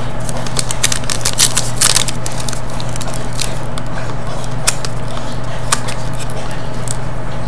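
Foil trading-card pack wrapper crinkling and crackling in irregular small bursts as it is handled and torn open by hand, over a steady low electrical hum.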